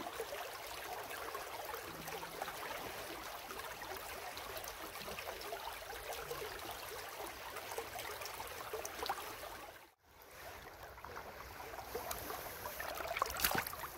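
Shallow river current flowing, a steady rush of water. It cuts out for a moment about ten seconds in, and a short click comes near the end.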